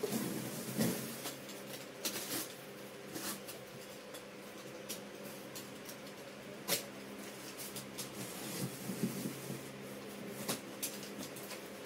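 Utility knife slitting the packing tape on a cardboard box: scattered scrapes and light clicks of the blade and cardboard, with one sharper click about two-thirds of the way through, over a faint steady hum.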